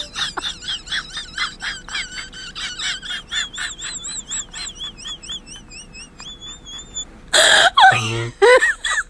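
High-pitched, squeaky human laughter in quick repeated bursts, about three a second, tailing off after about seven seconds. A loud burst and a few rising cries follow near the end.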